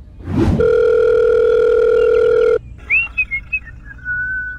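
A quick whoosh, then a loud steady electronic beep tone like a phone dial tone, held for about two seconds and cut off sharply: a sound effect signalling an empty fuel tank. Faint whistled chirps follow near the end.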